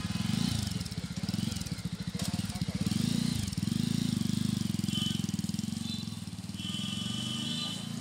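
Jawa Forty Two's single-cylinder engine idling, its exhaust giving a steady, even thumping beat.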